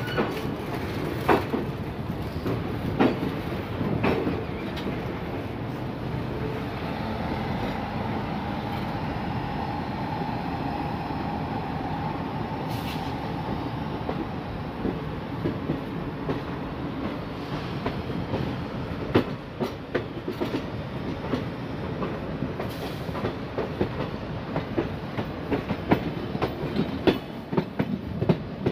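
Passenger coach wheels running over rail joints and yard points, with sharp clacks scattered throughout and a quicker run of them in the second half, heard from the doorway of the moving coach. A faint steady whine lasts several seconds near the middle.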